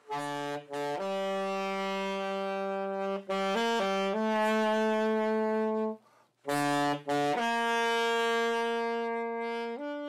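Saxophone played solo: a slow melody of long held notes in two phrases, with a short break about six seconds in.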